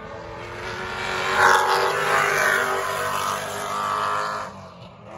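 A historic touring car racing past at speed, its engine at high revs. It builds about a second in, is loudest shortly after, and fades away near the end.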